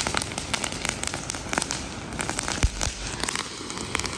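A ground firework burning on the road, giving off a dense, rapid crackle of small pops, with one louder bang about two and a half seconds in.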